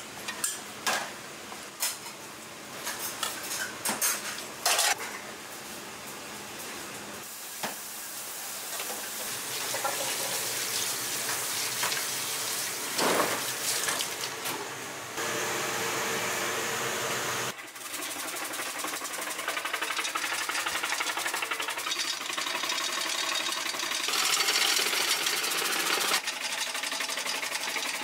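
Kitchen work sounds: a few clinks of stainless steel bowls at first, then a tap running over vegetables in a steel sink, then, from about two-thirds of the way in, an electric vegetable shredding machine running steadily as it slices vegetables into a basin.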